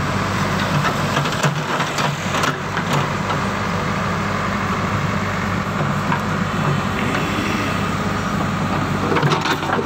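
JCB backhoe loader's diesel engine running steadily as the backhoe bucket digs a narrow trench, with a few short knocks.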